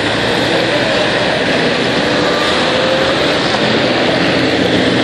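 Steady noise of road traffic passing on a wet highway, with tyres hissing on the road.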